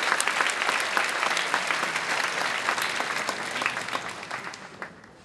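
Audience applauding in a theatre; the clapping thins out and dies away near the end.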